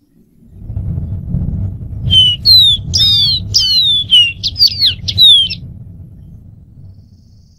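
Dark-throated seedeater singing one quick phrase of about ten clear, slurred whistled notes, some sliding up and some sliding down, lasting about three and a half seconds. Under it a low rumble starts about half a second in and fades out near the end.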